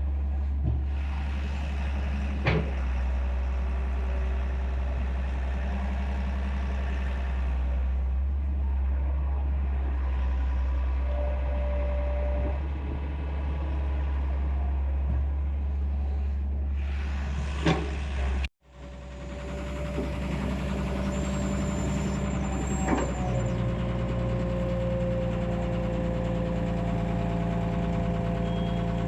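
Heavy excavator's diesel engine running steadily, with a few sharp knocks. The sound cuts out briefly about two-thirds of the way through, then the engine comes back.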